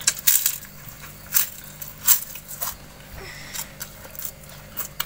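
A person chewing and biting crisp food close by: a run of irregular, sharp crunches, loudest in the first half-second and again about one and a half and two seconds in.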